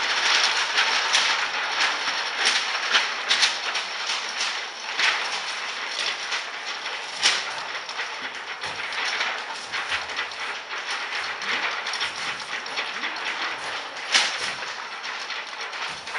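An ensemble of performers knocking and clattering everyday objects as percussion: a dense, irregular clatter of many sharp knocks, with a louder knock about seven seconds in and another about fourteen seconds in.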